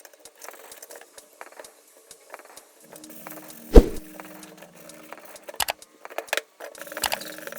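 Light clicks and rattles of small hard parts being handled, with one loud knock a little before the middle.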